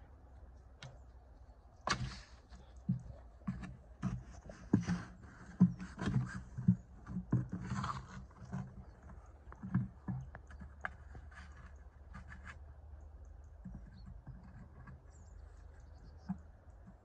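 A green plastic watering can being carried, knocked about and dragged over snow by playing Labrador puppies: irregular thuds and scrapes, busiest in the first ten seconds or so, then only a few scattered knocks.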